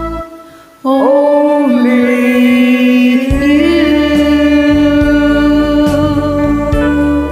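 Singing over a karaoke backing track: after a brief break in the music, one long note is held with slight bends in pitch, and the backing band and bass come back in about three seconds in.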